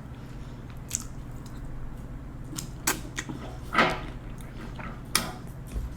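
Person chewing food, with a few short, sharp mouth smacks or crunches scattered through, over a low steady hum.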